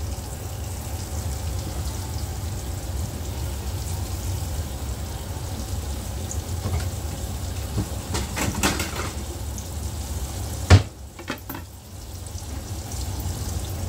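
Arepa dough frying in a little oil in a pan, a steady sizzle. Near the end comes a single sharp knock, the loudest sound, as a plate is set down on the counter.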